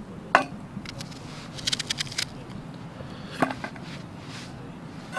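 Small onions being peeled and cut by hand with a knife: a quick run of crackly snips near the middle, and two sharper clicks, the louder about half a second in and another about three and a half seconds in, as pieces land on a steel plate. A low steady hum runs underneath.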